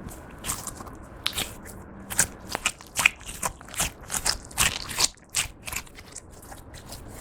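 Clear slime being mixed with glitter eyeshadow, giving a run of short, irregular sticky clicks and pops. They come thickest in the middle and thin out near the end.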